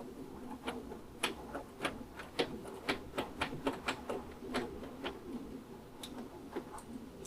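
A run of irregular light clicks and taps, a few to several a second, from fasteners and parts being handled as the motorcycle's headlight fairing is refitted.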